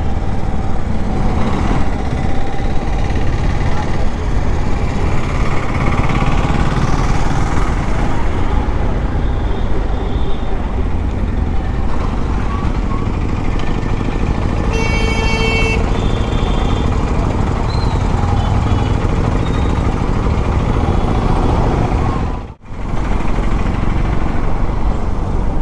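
A Bajaj Pulsar NS200's single-cylinder engine running while riding through town traffic, with wind on the helmet microphone. A short, high horn beep sounds about halfway through, and the sound cuts out for a moment near the end.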